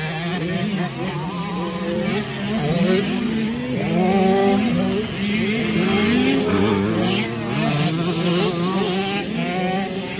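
Several dirt bike engines revving together, their pitches rising and falling as the throttles are worked.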